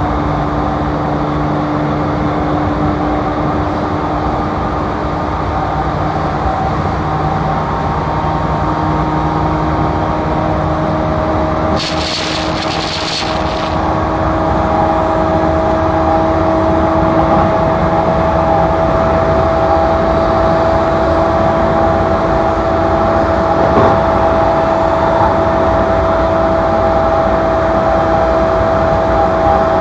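JR E235 series electric train running at speed, heard from inside the carriage: the traction motors' steady whine over the rumble of wheels on rail. A brief hiss cuts in about twelve seconds in.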